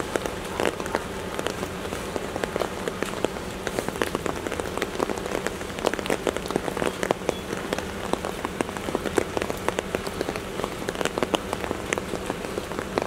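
Steady rain falling, with many separate sharp drop hits close by over the even hiss of the downpour.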